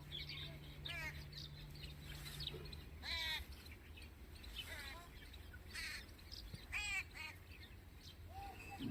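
Birds chirping in short bursts of quick repeated notes, one burst every second or two, over a low steady hum that stops about three seconds in.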